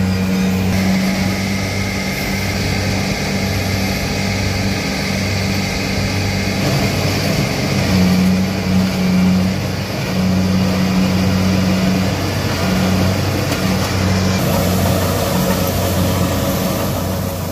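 A motor vehicle's engine running at a steady speed: a low, even hum that wavers a little in strength, over a constant rushing noise.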